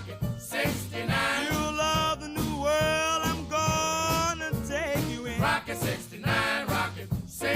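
A song with a male vocal over a steady bass beat, in an upbeat swing or ska style.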